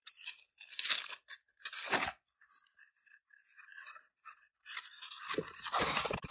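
Packaging being handled: plastic wrap crinkling and a foam tray rubbing against a cardboard box as a shrink-wrapped mini UPS is lifted out. It comes in short rustling bursts about a second and two seconds in, with faint crackles between and a longer, louder bout near the end.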